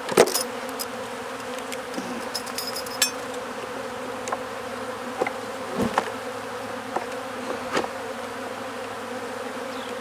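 Honey bees buzzing steadily around an opened hive, a mostly dead colony, bees the beekeeper suspects may be robbers from another colony. Several sharp wooden clicks and knocks as frames are pushed back into place in the hive box, the loudest just after the start.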